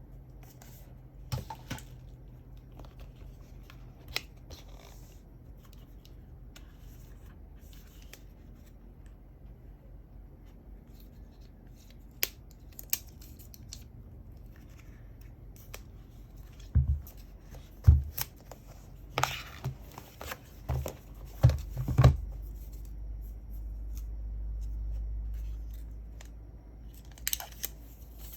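Hands opening and handling a product box and its packaging: scattered clicks, scrapes and rustles, with a cluster of louder knocks and taps about two-thirds of the way through, then a low rumble.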